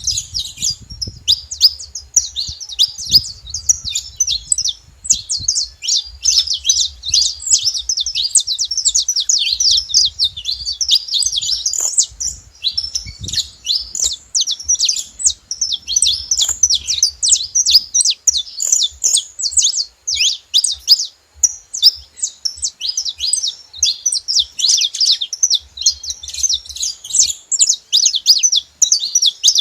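Saffron finches chirping rapidly and continuously at a feeding spot, a dense run of short high notes.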